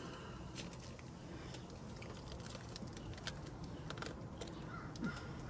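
Faint background noise with scattered small clicks and light taps, irregular and unhurried.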